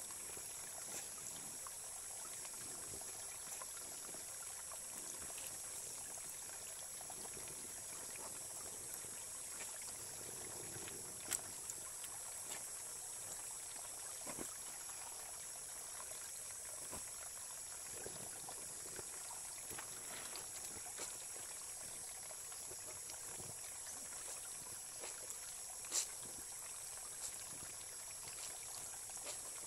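Shallow stream trickling steadily over pebbles, with occasional small splashes and drips from soapy laundry being wrung and handled in a basin. A couple of short sharp knocks stand out, one about eleven seconds in and a louder one near the end.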